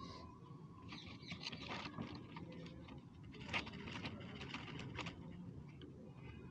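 Fingers pressing and firming loose, lumpy soil in a small pot, making faint gritty scratching with a few soft clicks.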